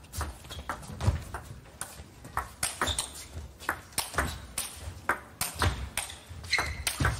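Table tennis rally: the celluloid-type ball struck back and forth by rubber-faced bats and bouncing on the table, a run of sharp clicks, two or three a second.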